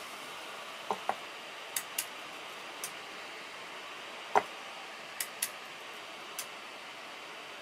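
Relays on an induction cooker's power board clicking, often in pairs about a quarter second apart, as the board switches the opposite half bridge and an auxiliary coil onto the coil under the pot.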